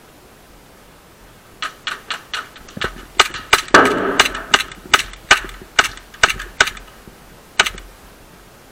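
A BB gun fired in a rapid string of sharp cracks, two to three a second for about five seconds, with one last shot near the end.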